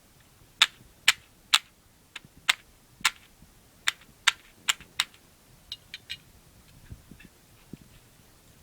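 A run of about ten sharp, loud clicks, roughly two a second, for the first five seconds, then a few fainter ticks and light knocks.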